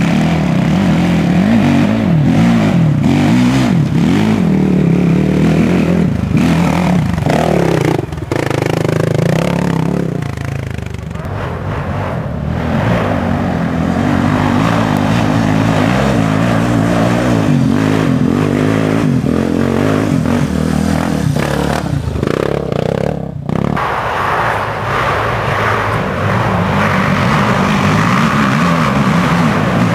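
Racing ATV (quad) engines running and revving hard, the engine note changing pitch as they accelerate and let off. The pitch sweeps up and down most clearly about a quarter of the way in and again about three quarters in.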